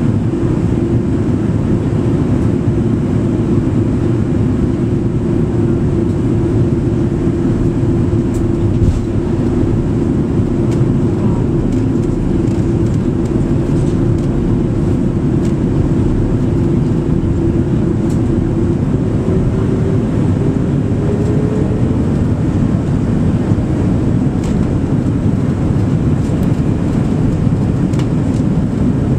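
Airbus A300-600 airliner cabin noise on approach with flaps out: a steady rush of engine and airflow noise. Over it runs a steady engine hum that glides higher in pitch about two-thirds of the way through.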